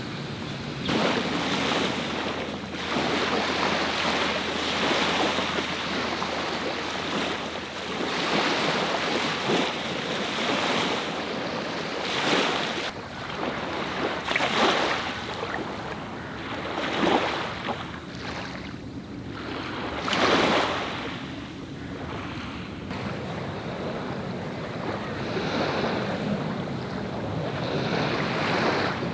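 Sea waves washing onto the shore in surges every few seconds, with wind rumbling on the microphone.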